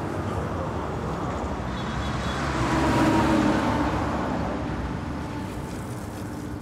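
Box truck driving past on the road, its engine and tyre noise rising and fading away, loudest about three seconds in, over steady traffic noise.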